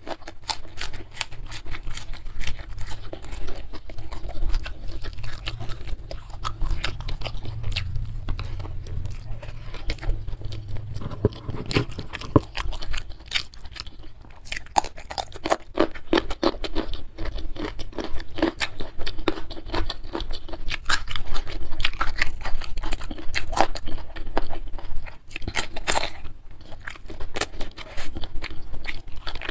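Close-miked eating sounds: chewing and crunching of raw green vegetables, rice and spicy beef with young jengkol, with many short sharp mouth clicks throughout.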